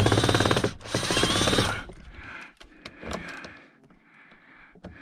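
Cordless power drill running as it works screws on a dishwasher motor's casing: a loud whirring rattle for about two seconds, then a fainter run that trails off.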